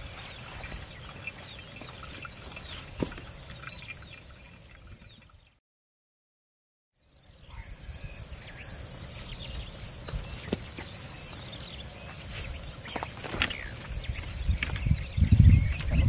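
Insect chorus trilling steadily in a high, pulsing band. It drops to complete silence for about a second and a half midway, then comes back with a second, pulsed insect call layered above it. A low rumble rises near the end.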